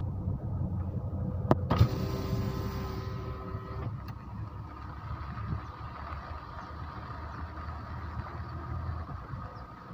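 Steady low rumble of a vehicle rolling slowly along a gravel road, with a couple of sharp clicks about a second and a half in.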